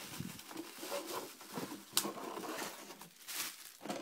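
Packaging rustling and crinkling as a camera is lifted out of its box, with a sharp click about two seconds in.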